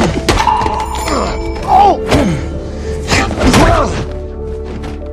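Film fight-scene audio: several heavy thuds of blows and bodies hitting seats, with men's voices crying out, over background music.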